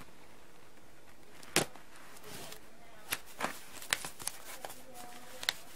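Cardboard shipping box being handled and opened: a sharp crack about one and a half seconds in, then a string of smaller clicks, scrapes and rustles of cardboard and tape.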